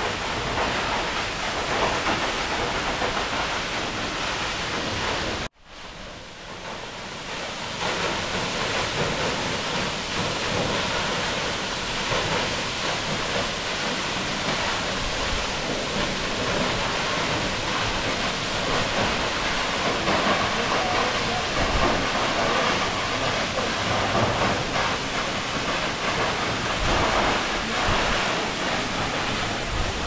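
Steady rush of a tall waterfall falling onto rocks and into a pool. About five seconds in, the sound cuts out abruptly and fades back up over a couple of seconds.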